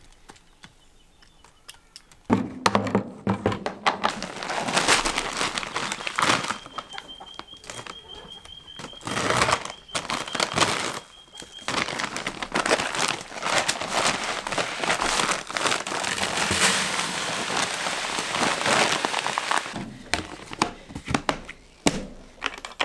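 Chick starter crumble being poured from its feed bag into a plastic bucket: a long rush of pouring grains with the bag crinkling. It starts about two seconds in and thins to scattered rattles near the end as the bag empties.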